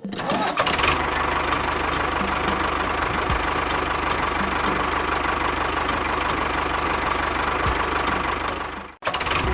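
An engine idling steadily with a faint regular tick about twice a second, cut off abruptly near the end.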